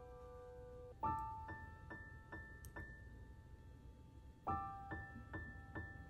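Quiet background piano music: a slow, gentle melody of single notes, with a chord struck about a second in and another about four and a half seconds in.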